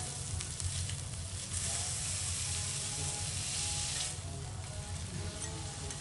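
Kobe beef steaks sizzling on a hot teppanyaki iron griddle, with a few light clicks of the chef's metal knife and spatula against the plate in the first second or so. The sizzle eases slightly about four seconds in.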